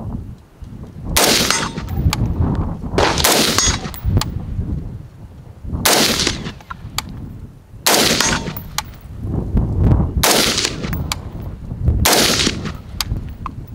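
Harrington & Richardson M16A1 rifle firing 5.56 mm rounds semi-automatically: six single shots at a slow, steady pace of about one every two seconds, each with a long echo. Light metallic clinks fall between the shots, spent brass landing.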